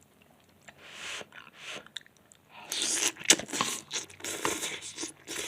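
A person eating spicy JinRamen noodles close to the microphone: chewing and wet mouth sounds, sparse at first and busier from about halfway.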